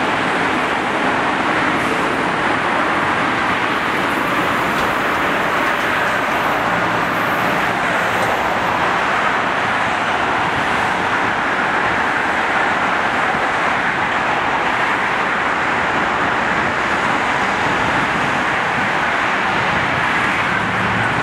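Steady noise of heavy expressway traffic, with a CTA Blue Line rapid-transit train running along the rails beside it.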